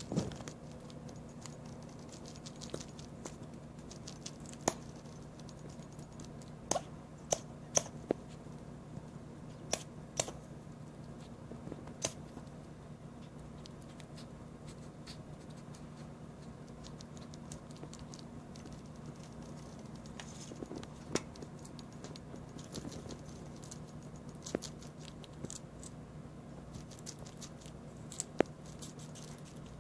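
Pet squirrel sneezing: short, sharp sneezes at irregular intervals, some in quick runs of two or three, over a steady low hum.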